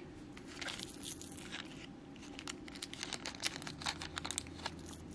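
A small plastic bag of tiny metal jewelry findings crinkling and crackling as it is handled, in a quick run of small irregular crackles.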